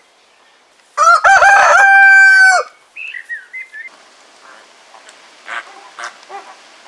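A rooster crowing once, loud: a rising call held level for about a second and a half that breaks off abruptly. A few faint short chirping calls follow.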